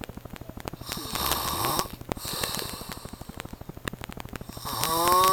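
A man snoring heavily: a loud, noisy snore about a second in and a weaker one after it. Near the end comes the loudest snore, which rises in pitch.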